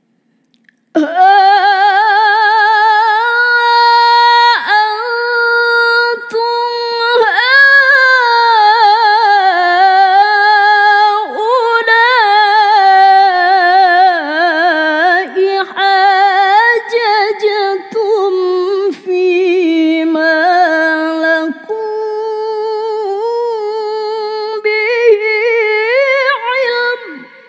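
A woman reciting the Qur'an unaccompanied in the melodic tilawah style: one long, loud phrase held in a high register with fast trills and ornaments. It starts about a second in and fades away near the end.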